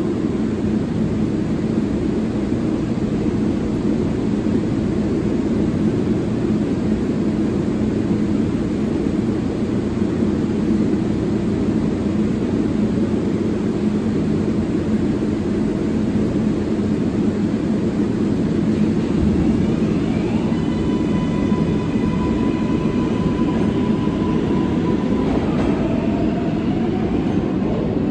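New York City subway (6) local train pulling out of the station: a steady loud rumble, with the electric traction motors' whine coming in about two-thirds of the way through and rising in steps as the train accelerates away.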